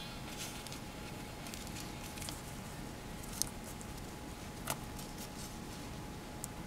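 A few faint clicks and rustles of small metal alligator clips and paper being handled, with two sharper clicks a little past the middle, over a steady background hiss.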